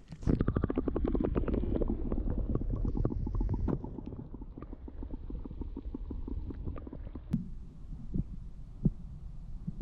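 Sound heard underwater: a low, muffled rumble of water moving around a freshly submerged microphone, with a rapid run of bubbling clicks for the first three or four seconds. After that it turns quieter, with scattered clicks and knocks.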